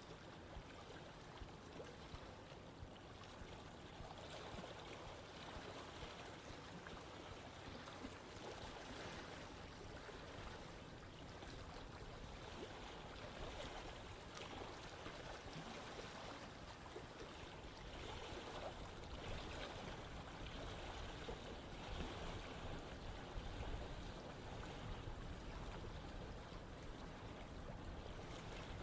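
Running stream water: a steady rush and babble of flowing water that grows a little louder in the last third.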